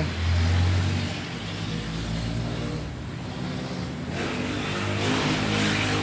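Elba microwave oven running on a heating cycle: a steady hum from its high-voltage transformer and cooling fan, with a hiss building in the last couple of seconds. It runs and heats with a new capacitor fitted in place of the shorted one, the sign the repair has worked.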